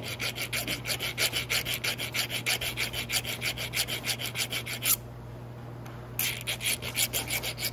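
Hand file rasping back and forth on the soft-metal end fitting of a motorcycle throttle cable, in quick, even strokes about five a second, with the soft metal coming off fast. The strokes pause for about a second just before the five-second mark, then start again.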